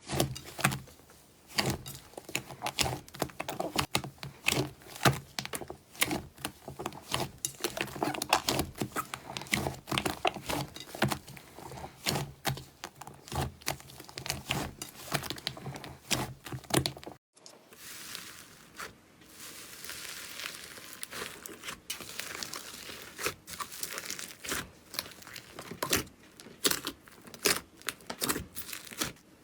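Slime being squeezed and pressed by hand, making a dense run of small crackling pops and clicks. After a brief dropout a little past the middle, a second stretch of thinner, fainter crackling follows.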